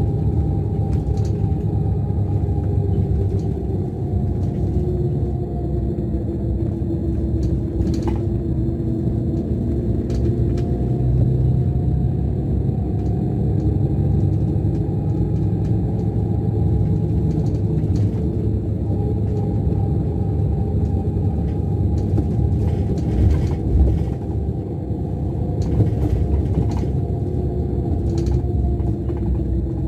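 Scania DC13 inline-six diesel of a Scania K410 coach running under way, heard from inside the lower deck: a steady low drone whose pitch rises and falls gently with engine speed. A few short knocks are heard, the loudest at about 8 s and around 23 to 24 s.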